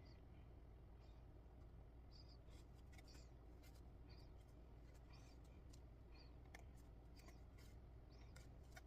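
Near silence, with faint scattered scratchy ticks and rustles of a needle and thread being pulled through cross-stitch fabric, over a low steady hum.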